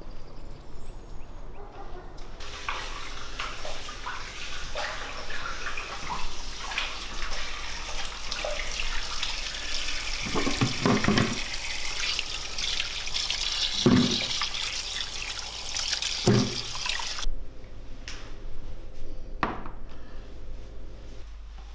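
Kitchen tap running hard into a sink as raw chicken drumsticks are rinsed under it, with a few knocks of the meat and the basin being handled. The water stops suddenly about three-quarters of the way through, leaving a couple of light clicks.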